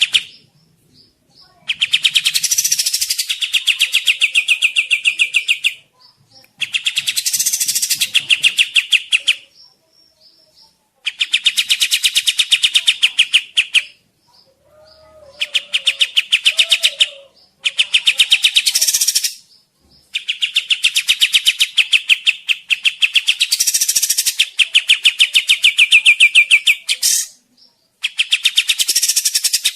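A kapas tembak bulbul singing in repeated bouts of a rapid, chattering trill of evenly spaced notes, each bout lasting a few seconds with short pauses between, one long bout running about seven seconds in the second half.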